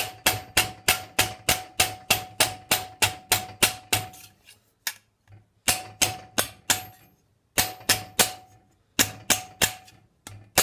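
A mallet striking annealed 22-gauge stainless steel sheet over a steel forging stake, hammering the edge over. There is a steady run of sharp blows, about three or four a second, each with a short metallic ring. After about four seconds a brief pause follows, then three shorter runs of blows with gaps between them.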